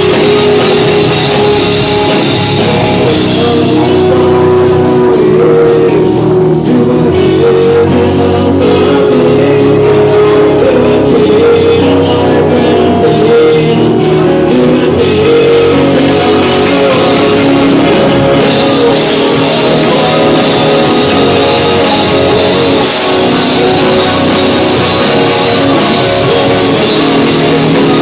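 A rock band playing live and loud on drum kit and guitars. For the first half the cymbals and treble pulse evenly about twice a second, then open out into a steady wash.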